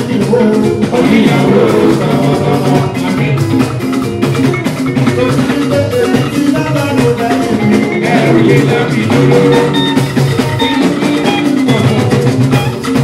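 Live band music with electric guitars, bass guitar and drums, and a man singing over it.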